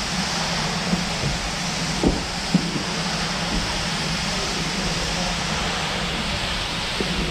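Steam locomotive sound for a slowly moving 0 gauge GWR 57XX pannier tank: a steady hiss over a low rumble, with a few short clanks in the first few seconds.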